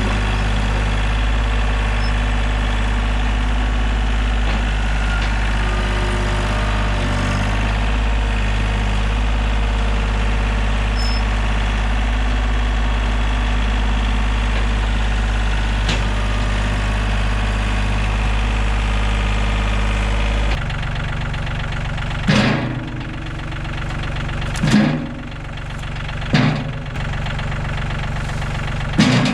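Diesel engine of a piece of heavy equipment running steadily. About two-thirds of the way through the sound changes abruptly, and four loud knocks follow, a second or two apart.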